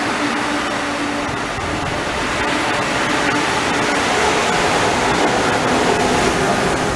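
Amtrak Acela Express trainset passing close alongside the platform: a loud, steady rush of wheels on rail and moving air, with a faint hum under it. It grows a little louder in the second half.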